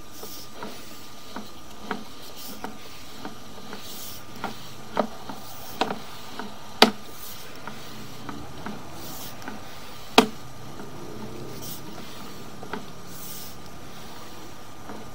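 Sewer inspection camera's push cable being pulled back through the drain line: scattered clicks and knocks, the two sharpest about 7 and 10 seconds in, with short hissy rubs, over a thin steady tone.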